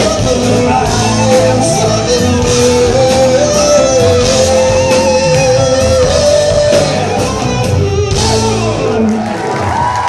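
Live rock band playing in a large hall, with vocals and a long sustained melody line over bass and drums. The deepest bass drops out near the end.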